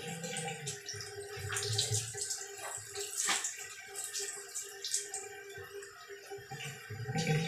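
Water splashing irregularly from a handheld shower as a small dog is washed in a tiled shower stall.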